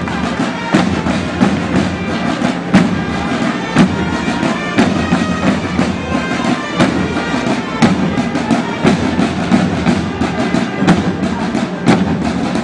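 Bagpipes playing a tune over a steady drone, with a drum struck about once a second, as procession music.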